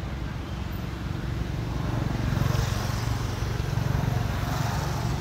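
Low engine rumble of a motor vehicle, growing louder about two seconds in and staying loud to the end.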